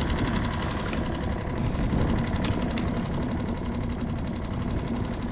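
Small skiff's outboard motor idling steadily at low speed, with a few faint clicks over it.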